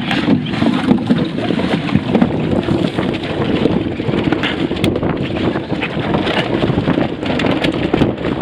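Strong wind buffeting the microphone aboard a Fireball sailing dinghy, with water rushing and splashing against the hull in many short crackles.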